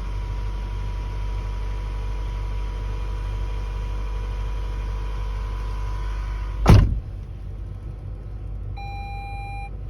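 Toyota Alphard 2.4 L four-cylinder engine started cold: a short, loud burst of cranking about seven seconds in as it catches, then the engine idling. A held electronic beep about a second long sounds near the end.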